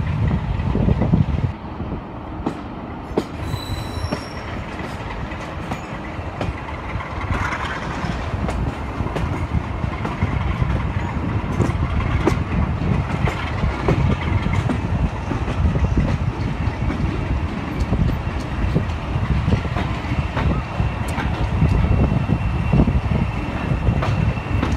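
Passenger train coaches rolling slowly over the rails into a station, a steady low rumble with wheels clicking over the rail joints. A steady high squeal sets in near the end as the train slows for the platform.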